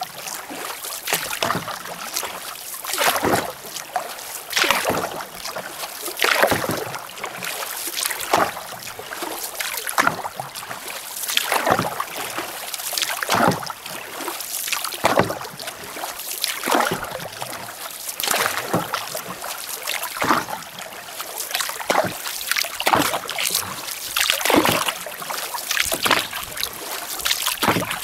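Lake water splashing and rushing along the bow of a paddled canoe moving through choppy water, surging about every one and a half to two seconds.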